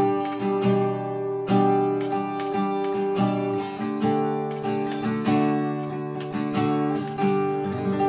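Taylor GS Mini-e koa acoustic guitar played with the fingers: chords strummed and picked, each attack ringing on, with the chord changing every second or two.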